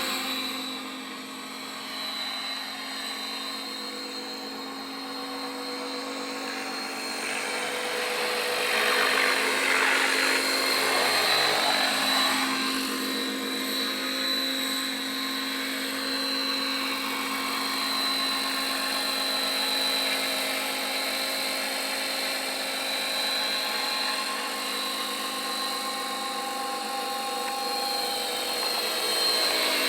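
Electric RC scale helicopter on T-Rex 600E flybar mechanics running in flight: a steady high motor-and-gear whine over rotor noise. It dips a little about a second in and is loudest midway through.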